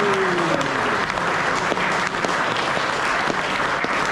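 Crowd applauding steadily, a dense patter of many hands clapping, with a brief falling voice near the start.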